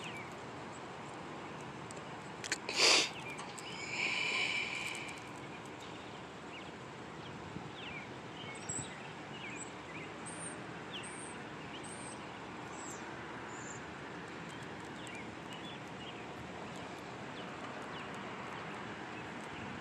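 Steady open-air background noise, with a short knock about three seconds in and a series of faint, high bird chirps through the middle.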